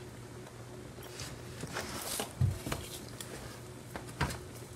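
A utensil being worked in a pan of thick, creamy soup: a few light, scattered taps and knocks, faint overall, over a low steady hum.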